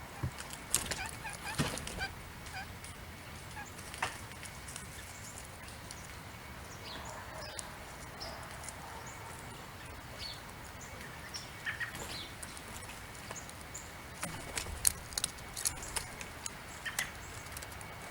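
Backyard songbirds chirping and calling in short scattered notes over the steady soft hiss of light rain. Clusters of sharp taps come about a second in and again near the end.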